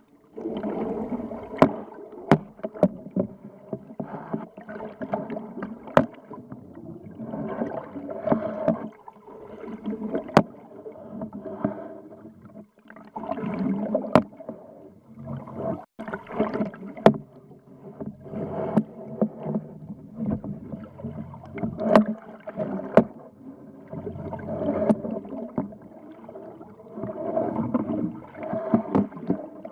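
Underwater sound picked up by a submerged camera: a muffled wash of water that comes and goes in surges, broken by many sharp, irregular clicks and knocks.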